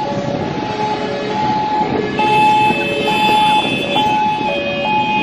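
Emergency vehicle's two-tone hi-lo siren, switching between a high and a low note about every half second, over street and crowd noise. A car horn is held for a few seconds from about two seconds in.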